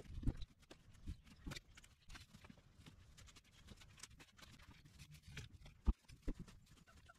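Irregular rustling and crackling of dry weeds being pulled up and stepped on, with footsteps on dry ground and one sharp knock shortly before the end.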